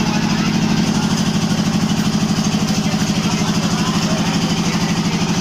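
An engine idling steadily, with a fast, even beat of about ten pulses a second.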